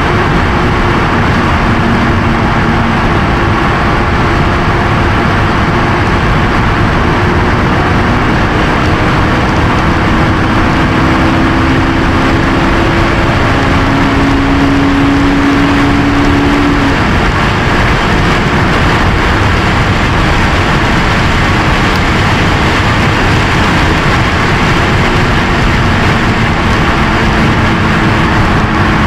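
Honda S2000's four-cylinder engine at high speed, heard inside the cabin under loud, steady wind and road noise. The engine note climbs slowly in pitch, fades out about two-thirds through, and a lower note comes back later, dropping away at the very end.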